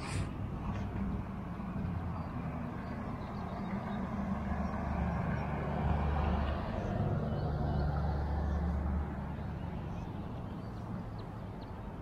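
A motor vehicle driving past on the road: a low engine and tyre rumble that builds to its loudest in the middle and fades toward the end.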